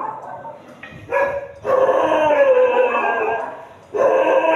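Dog howling: a long drawn-out howl of over two seconds starting about a second in, and another howl starting near the end.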